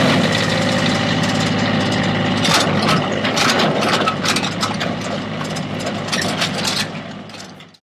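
Mini excavator engine running steadily, with sharp clanks and knocks from about two and a half seconds in until the sound fades out near the end.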